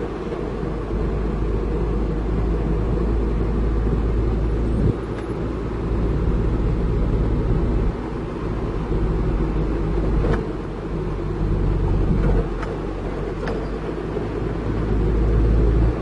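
Isuzu truck driving, heard from inside its cab: a low engine and road rumble that rises and falls in level a few times.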